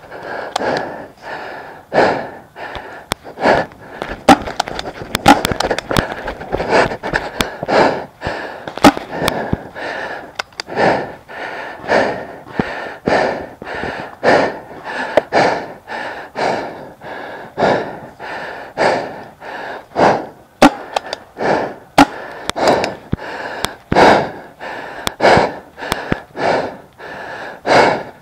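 A paintball player's heavy, rapid breathing, loud and close to the microphone, rising and falling about once a second. Scattered sharp cracks from paintball markers firing and balls striking run through it.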